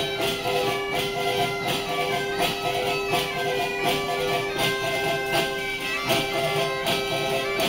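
Traditional folk music from a group of panderetas (frame drums) and a gaita bagpipe: the bagpipe's steady drone under a melody, with the drums beating about twice a second.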